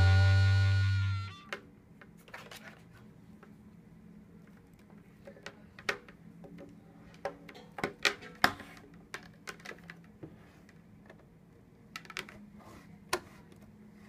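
A held music chord stops about a second in, followed by faint scattered clicks and knocks of power cords being handled and a cord plug being pushed into the back of a GoDex label printer, with a few sharper clicks around the middle and near the end.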